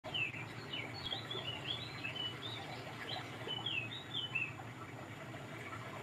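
A small bird chirping repeatedly: a quick run of short chirps that slide up and down in pitch, thinning out after about four seconds, over a steady low background hum.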